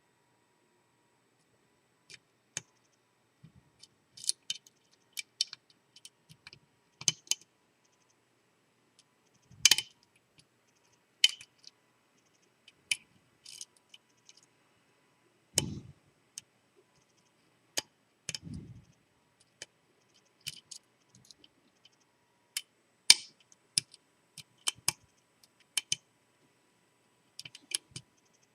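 Irregular small metallic clicks and taps of a lock pick and tension wrench working the pins of a seven-pin Lockwood V7 padlock, feeling for binding pins. Two duller knocks come around the middle.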